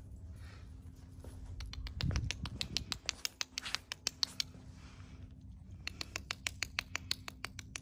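Puppy claws clicking on concrete as the puppies walk, in quick runs of sharp ticks. One run starts about a second and a half in, and after a pause another starts near the end.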